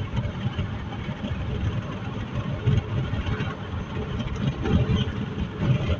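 Steady road and engine noise inside a moving car at highway speed: a low rumble with a haze of wind and tyre noise.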